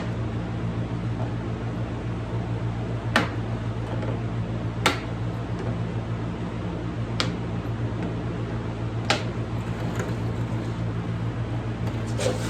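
Diagonal cutters snipping welded-on dent-puller pins off sheet metal just beyond their button heads: five sharp snips, a couple of seconds apart, over a steady hum.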